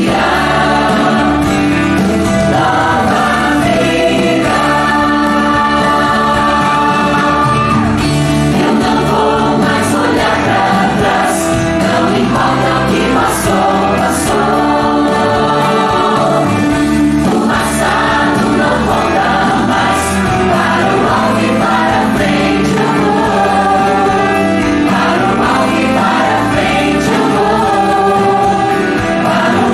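A mixed choir of men and women sings in harmony into hand-held microphones, amplified through a PA.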